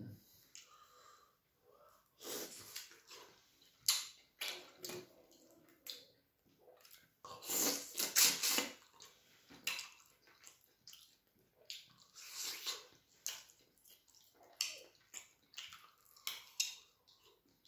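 Close-miked wet eating sounds of a person biting, chewing and sucking on soup-soaked chicken held in the hand, in irregular bursts, with the loudest cluster of quick slurps about eight seconds in.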